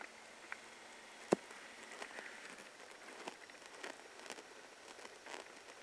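Quiet woodland ambience with a few faint scattered ticks and one sharp click about a second in.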